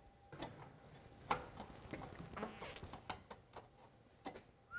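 Light, irregular clicks and taps of steel exhaust tubing being handled and pushed together while the pipe pieces are test-fitted.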